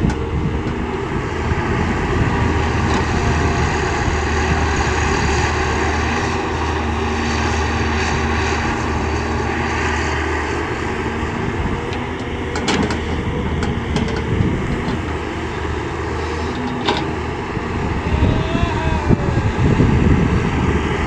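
CAT 320D excavator's diesel engine running steadily under load, with a wavering tone above it as the machine works. There are two sharp knocks, one a little past the middle and one later.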